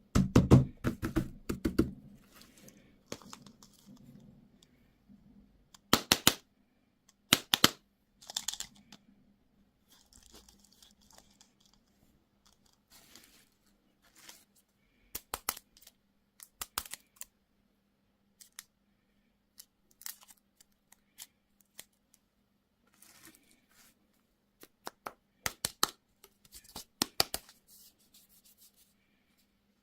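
Candy and toy packaging being torn open and crinkled by hand, in irregular bursts of sharp crackling and tearing with pauses between, loudest in the first two seconds and again near the end.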